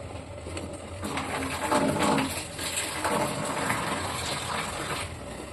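Chickpea curry (chole) bubbling as it simmers in an open aluminium pressure cooker on a gas stove, with many small pops as the bubbles burst.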